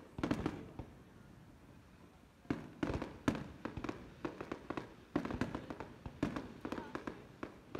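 Aerial fireworks display: shells bursting and stars crackling in quick clusters of sharp bangs, a cluster just after the start, another around three seconds in, and a longer run from about five seconds in.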